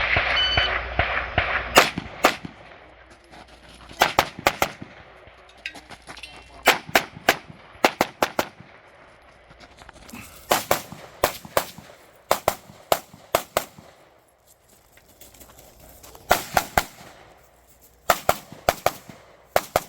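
Rapid gunshots from a competition firearm in quick strings of two to five shots, with short pauses between strings as the shooter moves through a timed stage. The run opens with a steady electronic tone, the shot timer's start signal, just before the first shots.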